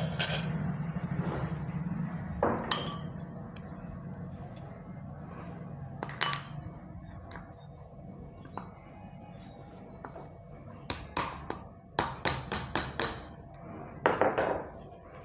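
Sharp metal clinks and taps of tools working a ball bearing off a ceiling fan's rotor shaft: a few scattered clinks, then a quick run of about seven taps near the end.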